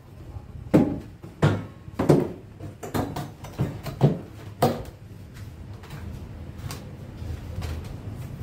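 A series of about seven wooden knocks and bumps over the first five seconds as a large plywood and MDF crosscut sled is handled and set onto a homemade table saw, its runners fitting tightly.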